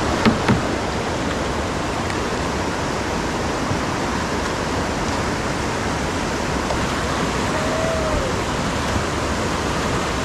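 Whitewater rapid rushing steadily, with two sharp knocks about half a second in.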